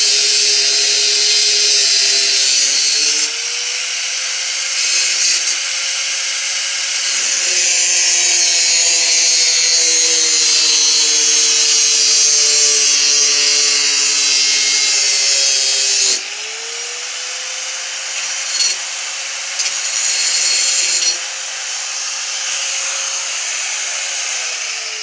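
Angle grinder with a cutting wheel running and cutting: a steady motor whine under a loud, hissing cut that eases off and comes back a few times. The pitch dips briefly under load about two-thirds of the way in, and near the end the whine starts to fall as the grinder winds down.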